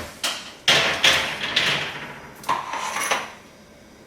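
An oven door and a metal muffin tin knocking and scraping as the tin is slid onto the oven rack: a string of about five sharp clunks with scraping in between.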